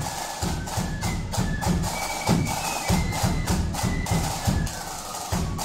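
Marching flute band playing a tune: flutes carrying the melody over steady side-drum and bass-drum beats.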